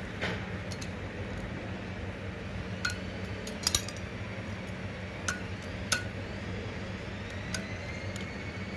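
Sharp metal clinks as a steel tool knocks against the steel barrel of a hydraulic cylinder jack at its open end: about five, spread from about three to six seconds in, a few with a short ring. A steady low hum runs underneath.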